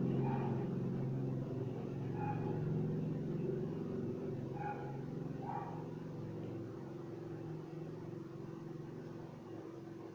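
A motor vehicle's engine rumbling and slowly fading away.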